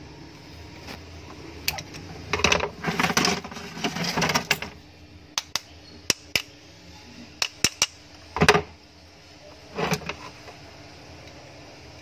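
A screwdriver and the metal end bracket of a mixer grinder motor clicking and clattering as the motor is handled and its end-plate screws are worked: a burst of rattling about two seconds in, then scattered sharp clicks and two duller knocks.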